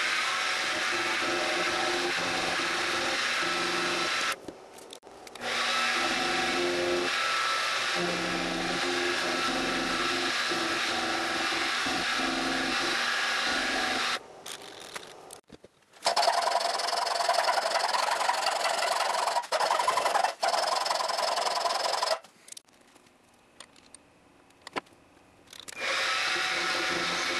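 Benchtop milling machine running, its end mill cutting a metal block in a vise, with a steady motor whine and cutting noise. The sound drops away three times, briefly, and the middle stretch, cut with the head tilted to an angle, is louder and rougher.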